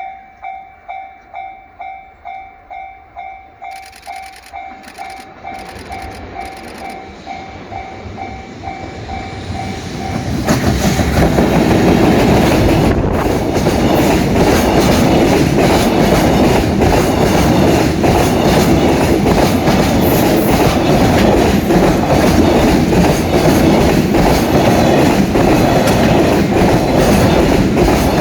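Japanese level-crossing warning bell ringing about twice a second. About ten seconds in, a freight train reaches the crossing and passes at speed, its wagons clattering steadily over the rail joints and drowning out the bell.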